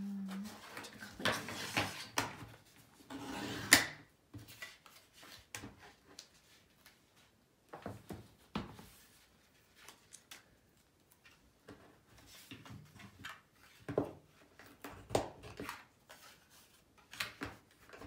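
Paper rustling and light knocks as sticker sheets, cardstock and a notebook are handled and set down on a tabletop, with a sharper tap a little under four seconds in.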